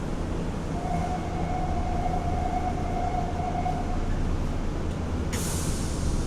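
Inside a running 3050-series Nagoya subway car: steady low rumble of the train. A steady whine holds for about three seconds, then a sudden sharp hiss comes about five seconds in and fades.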